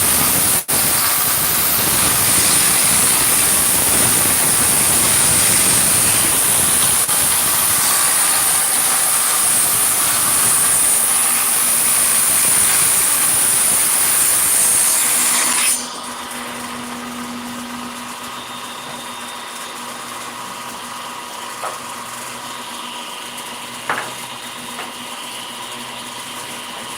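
A woodworking power tool running loud with a high-pitched whine, then cutting off suddenly about sixteen seconds in. After that a quieter steady hum continues, broken by a couple of light knocks.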